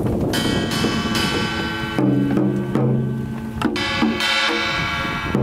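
Music: sustained pitched notes that change every second or two, with drum strikes.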